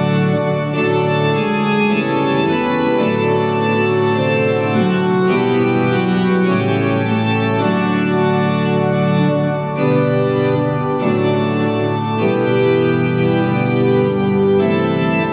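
Electronic keyboard played with an organ sound: sustained chords that change about once a second.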